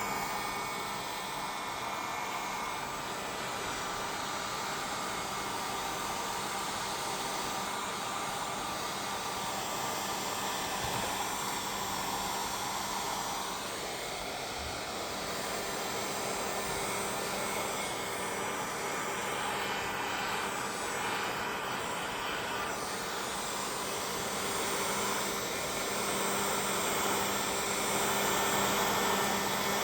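A hand-held hot-air blower runs steadily, blowing over white epoxy to spread it into wave lacing in the resin. It grows a little louder near the end.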